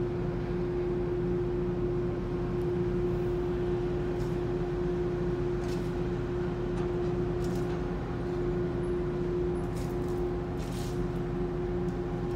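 Steady hum of a ro-ro ferry's engines and machinery running at berth: one constant droning tone over a low rumble, unchanging throughout, with a few faint ticks.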